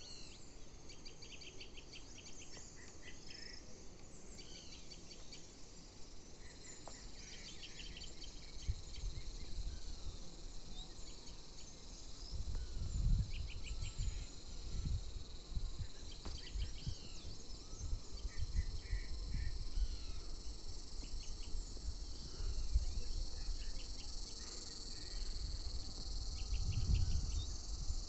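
Insects buzzing steadily in rural hillside surroundings, with short chirping trills repeating over the buzz. From about eight seconds in, low irregular rumbling on the microphone grows louder.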